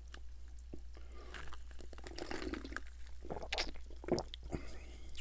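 Sparkling water sipped from a plastic cup and swallowed, heard as faint wet mouth clicks and gulps close to the microphone.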